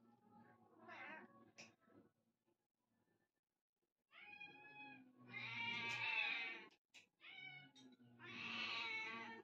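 Domestic cats meowing for food, about four meows in the second half, the longer ones loud and drawn out.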